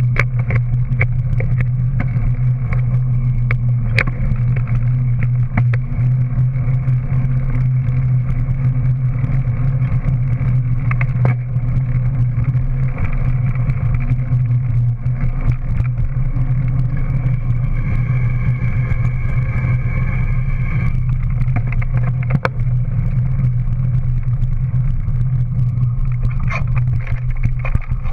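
Steady low rumble of a Scott 50 dual-suspension mountain bike riding on a concrete path, its rear tyre rolling, picked up by a GoPro mounted on the bike, with scattered clicks and rattles. A brief high whine sounds for a few seconds a little past the middle.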